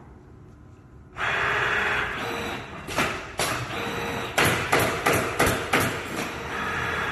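Automatic canvas stretching and stapling machine starting up about a second in with a steady whir and hiss, then a quick run of sharp clacks and knocks in the middle before the whir carries on.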